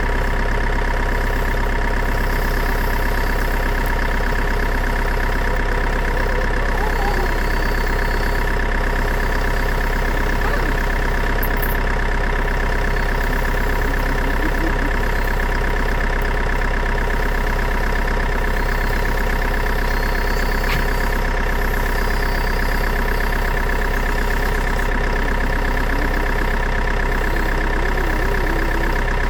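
Engine idling steadily with an unchanging hum; the speed never rises or falls.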